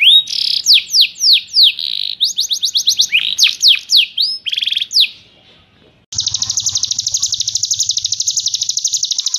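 Songbird song: a rapid run of sharp, falling whistled notes and short trills, then, after a brief pause about five seconds in, a fast, even, continuous trill of quickly repeated notes.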